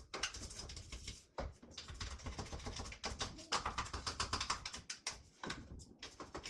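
Toothbrush scrubbing small spots on a front-load washing machine in quick, scratchy strokes, sped up to double speed, stopping briefly twice.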